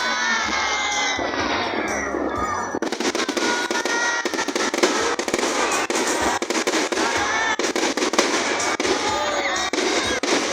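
Fireworks display: a continuous, dense crackling and popping of firework bursts.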